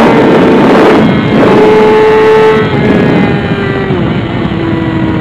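A 2006 Yamaha R6's inline-four engine running at highway speed under a rush of wind. Its note steps down in pitch about a second in and again about four seconds in, and the wind rush fades after about two and a half seconds, as the bike eases off.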